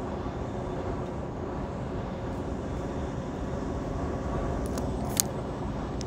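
Steady engine drone and road noise of a semi-truck cruising on the highway, heard from the cab, with one sharp click about five seconds in.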